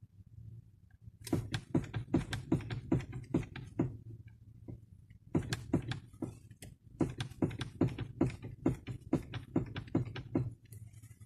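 Steering rack of a Hyundai i30 (GD) knocking: sharp knocks about three a second, in two runs with a pause of about a second and a half between them, over a low steady hum. The owner takes the knock for a worn steering rack.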